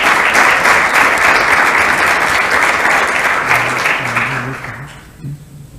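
Small audience applauding, fading out about five seconds in.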